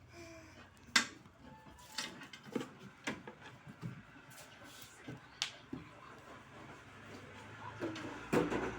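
Scattered clicks, knocks and light clatter of objects being handled, the sharpest about a second in and a denser burst near the end.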